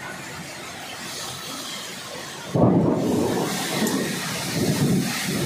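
A steady hiss of heavy rain and wind, then, about two and a half seconds in, a sudden loud thunderclap that rumbles on in swells to the end, following a close lightning flash.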